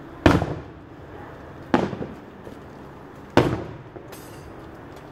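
Fireworks going off: three sharp bangs about a second and a half apart, each echoing briefly.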